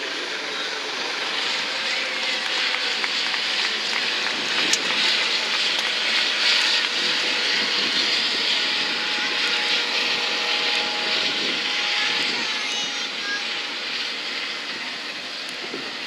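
US Coast Guard MH-65 Dolphin helicopter flying past, its turbine engines and rotors making a steady, loud rushing noise that swells in the middle and eases off near the end.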